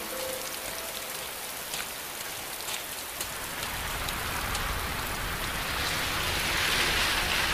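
Rain pouring down, with scattered drops striking close by. The rain swells louder over the last few seconds.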